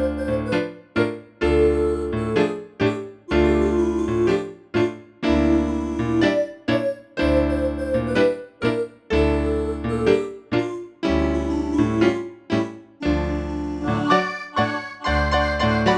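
ZTE R225 mobile phone's built-in polyphonic ringtone playing: a tune in a steady rhythm of chords over a bass, separated by short gaps.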